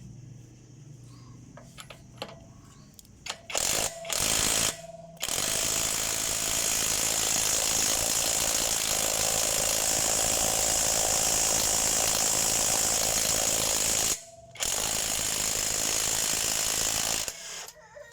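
KEELAT cordless impact wrench hammering on a car wheel nut that was tightened by a tyre shop's air gun: a short burst about four seconds in, then a long run of about nine seconds, a brief stop, and a further run of about three seconds.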